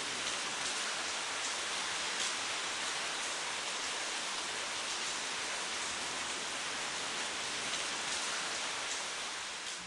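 Steady rain sound effect: a dense, even hiss with faint scattered ticks throughout.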